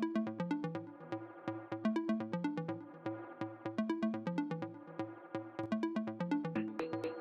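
Background electronic music with a steady beat and a repeating bass and melody figure; a higher sustained note joins near the end.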